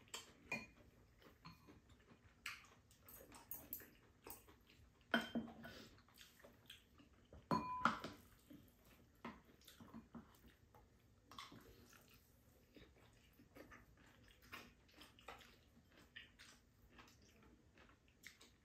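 Quiet eating sounds: spoons and chopsticks clicking and tapping against ceramic bowls, with chewing and slurping of rice and soup. Two louder clatters come about five seconds in and around eight seconds in.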